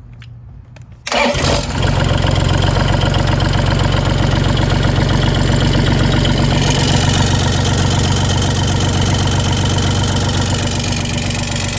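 A Bobcat E35 mini excavator's three-cylinder Kubota diesel cranks and starts about a second in, then runs steadily and loudly. The noise carries metal clattering from a broken exhaust muffler flange that is leaking exhaust gas.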